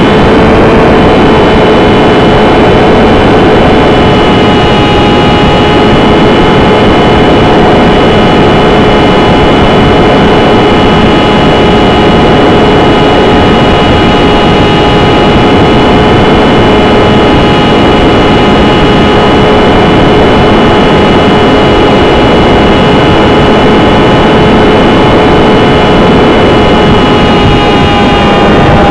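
Small electric motor and propeller of a Champ RC plane whining steadily at a near-constant pitch, very loud and close, with a rush of air noise, as picked up by a keychain camera mounted on the plane.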